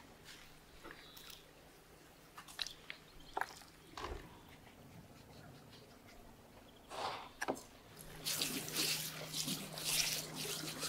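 Coarse salt being rubbed by hand into the scored flesh of a large raw fish, making a gritty, wet crunching. It comes as scattered clicks at first and grows dense and continuous for the last few seconds.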